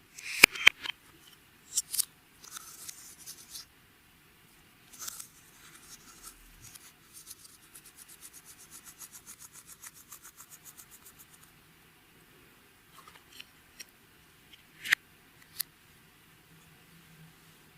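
Hand scraping and rubbing while making slime: a few sharp clicks at the start, then a run of rhythmic scraping strokes, about four or five a second, through the middle, and a few more clicks near the end.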